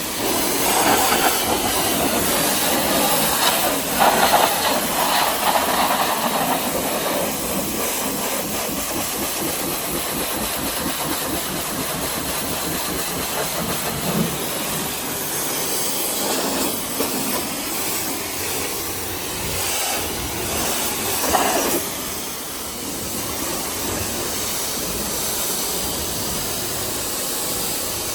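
Pressure washer spraying water onto a car, a steady loud hiss that swells briefly about four seconds in and again about twenty-one seconds in.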